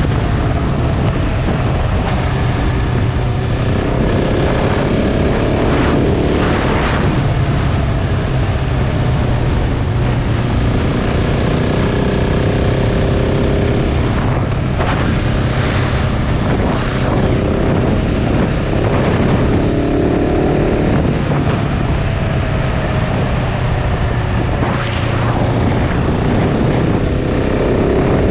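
KTM 690 Enduro R's single-cylinder four-stroke engine running under way, its pitch rising and falling several times with the throttle, over a steady rush of wind and road noise.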